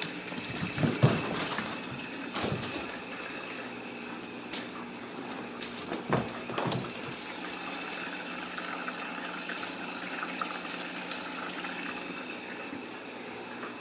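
Steady household hum and hiss, with a few scattered knocks and scuffles as a Ragdoll kitten plays with a small toy on a rug and wooden floor. The loudest knocks come about a second in and around six seconds in.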